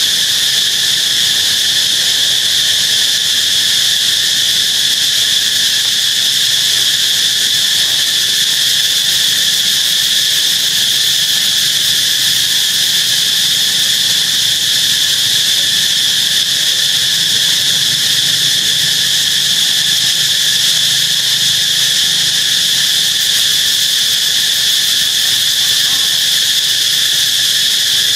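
A loud, steady chorus of insects: a continuous high-pitched drone that holds unchanged throughout.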